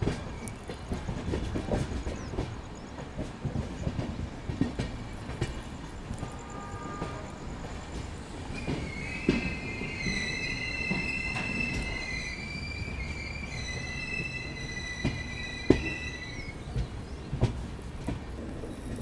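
Passenger train coaches running round a curve, wheels knocking irregularly over rail joints and points. From a little before halfway, a high, wavering wheel squeal sounds for about eight seconds, then stops.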